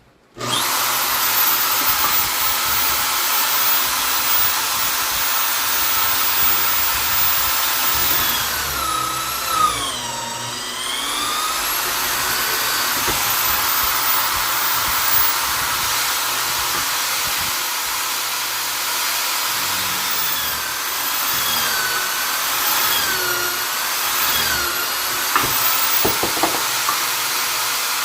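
Vonder drill/driver motor switching on about half a second in and running at high speed with a steady whine and hiss. Its pitch sags and recovers around ten seconds in and wavers several times near the end, as the speed drops and picks up again.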